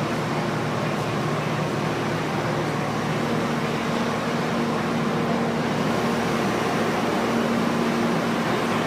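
A diesel pickup truck's engine running steadily, with a humming drone that steps up in pitch about three seconds in and grows slightly louder.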